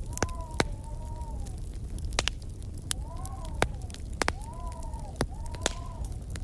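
Fireplace fire crackling, with sharp pops scattered through a steady low roar, while wind howls in short moans that rise and fall in pitch, one after another.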